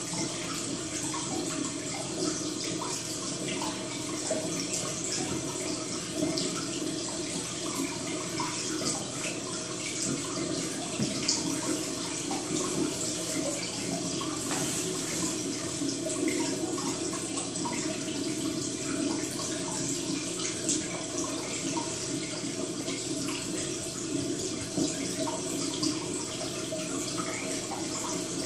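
Steady running, trickling water with scattered small drips and ticks.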